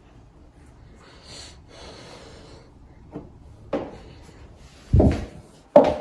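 Soft rustling, then a few irregular knocks and thumps, the loudest about five seconds in, from someone walking on a hard floor in high heels.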